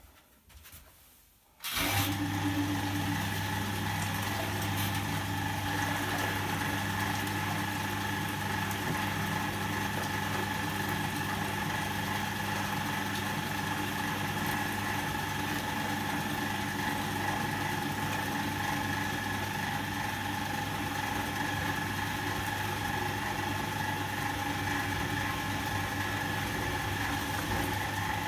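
Volga-8R activator washing machine switched on about two seconds in, its electric motor then running steadily with a hum as it washes.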